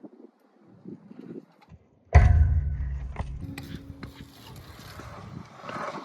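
BMX bike riding: a few light clicks, then a sudden loud thump about two seconds in, followed by a rushing noise that slowly fades, with scattered mechanical clicks.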